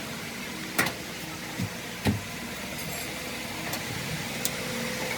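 A car running steadily, with three sharp knocks in the first two seconds.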